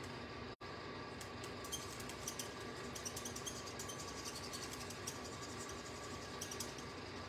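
Faint scratching of an alcohol-ink marker tip rubbed in small circles on cardstock: many light, irregular ticks over a steady electrical hum. The audio cuts out for an instant about half a second in.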